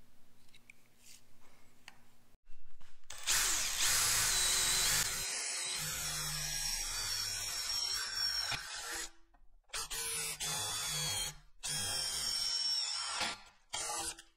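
Makita cordless drill boring holes through aluminum angle clamped in a vise, starting about two and a half seconds in and running in several runs with short stops between.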